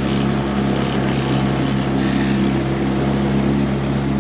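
Small outboard motor on an inflatable dinghy running steadily under way, at an even pitch.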